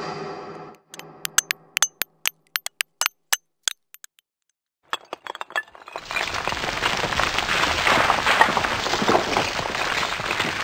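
Sound effect of a wall cracking open: a tone fades out in the first second, then scattered sharp cracks and clinks for a few seconds. After a brief pause, a dense crumbling rush of falling debris starts about six seconds in and is the loudest part.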